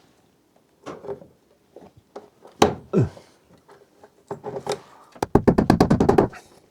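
Hand work on the wiring: scattered knocks and rubbing of tools and cable against wood, then near the end a quick rattle of about a dozen clicks lasting a second.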